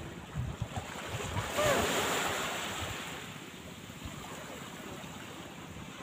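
Small waves washing up on a sandy beach, with one surge of surf about a second and a half in that slowly eases off. Wind buffets the microphone with low thumps at the start.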